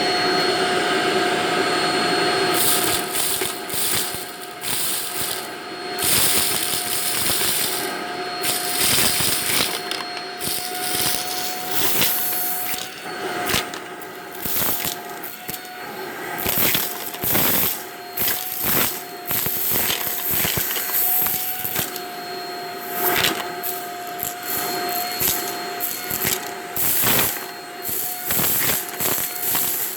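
Vacuum cleaner running steadily on carpet with a high motor whine, while it is pushed back and forth and many irregular clicks and crackles cut through.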